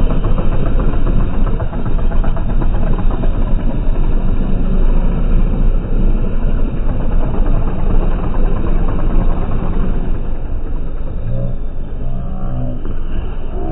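John Deere diesel tractor engine running hard at heavy throttle, loud and rough, its black exhaust smoke the sign of the engine being pushed. A pitched engine note comes through near the end as the front wheels lift off the road.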